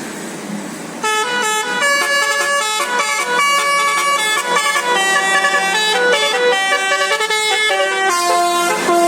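A bus's 'basuri' telolet musical air horn playing a tune: a quick run of steady horn notes, often several sounding together as chords, starting about a second in.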